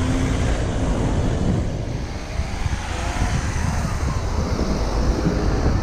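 City road traffic: cars' engines and tyres going past, under a steady low rumble.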